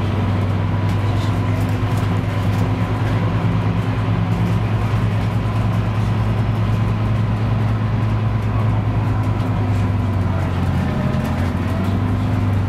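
Inside a Scania K310UB city bus on the move: its nine-litre five-cylinder diesel engine runs steadily with a deep hum over road and body noise. The engine note shifts slightly about ten seconds in.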